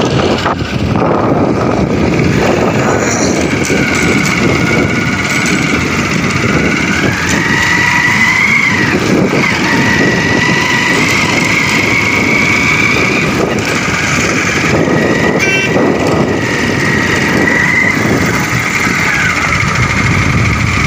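Motorcycle on the move, its engine running steadily under a loud, even rush of wind over the microphone, with a faint wavering whine in it.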